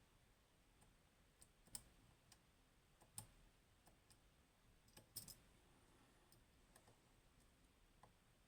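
Faint, irregular clicks of a lock pick working the pins of a Goal Grand V, a Japanese 24-pin high-security lock. A handful of sharper clicks are spread through the quiet, the sounds of pins being lifted and setting at the shear line.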